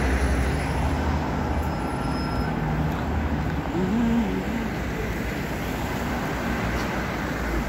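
Busy city-street traffic: buses and cars running past, a steady low hum over the rush of tyres.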